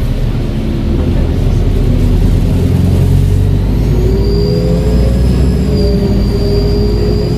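ADL Enviro 400H hybrid double-decker bus running under power, with a steady engine hum. About three and a half seconds in, a high, steady turbo whistle comes in and holds on.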